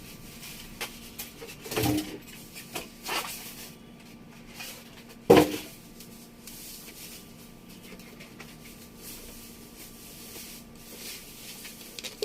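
Handling noise from unpacking a computer monitor from its box: scattered knocks and rustles of cardboard and packing, with one sharp loud knock about five seconds in.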